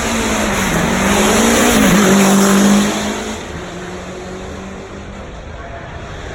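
Performance car engine running hard as it passes, its note rising and falling, loudest between two and three seconds in, then dropping away quickly and fading.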